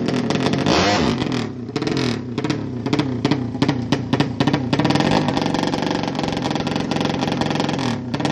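200cc drag bike engine revved hard while held at the start line, its pitch climbing and dropping over and over in quick blips, with sharp crackles throughout.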